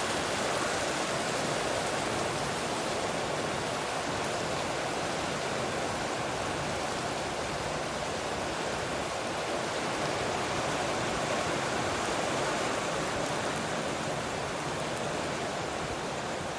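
Rain falling steadily, an even hiss that holds constant throughout.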